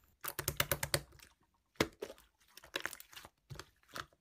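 Typing on a computer keyboard: a quick run of key clicks, a short pause, then more scattered bursts of keystrokes.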